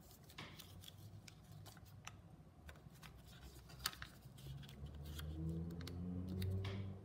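Origami paper being creased and pressed flat by hand on a table: soft rustling with small crisp paper clicks, one sharper than the rest about halfway. A low droning hum rises in the background over the last couple of seconds.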